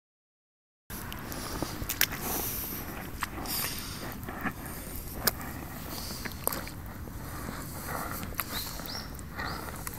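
Hunter rubber rain boots stepping through wet mud: uneven footsteps with wet squelches and sharp clicks, over a steady low rumble. The sound begins about a second in.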